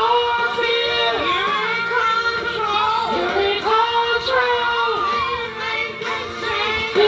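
Gospel singing over backing music, played through a small karaoke machine: one voice holding long notes and sliding between them, with no clear words.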